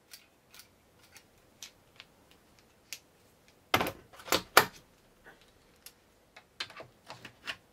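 A series of light clicks as the screwdriver's twisting piece is turned. About four seconds in come three sharp clacks as the screwdriver is set into the hard plastic carrying case, with a few smaller clacks near the end.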